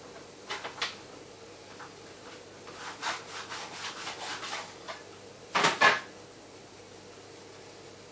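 Hands rolling sticky boilie paste into balls: a couple of small knocks, then about two seconds of quick rubbing strokes, then a short, louder scrape about two-thirds of the way through.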